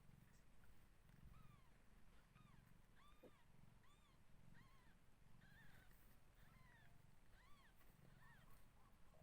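Newborn kittens mewing faintly: a string of short, high squeaks, one or two a second, each rising and falling in pitch.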